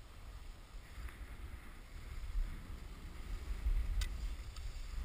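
Wind buffeting the microphone of a camera moving downhill on skis, a low rumble that grows louder toward the end, over the hiss of skis sliding on packed snow. Two faint clicks come about four seconds in.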